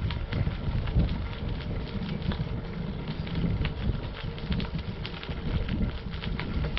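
Bicycle tyres rolling over a light gravel path: a continuous crunching crackle of many small stone clicks over a low rumble.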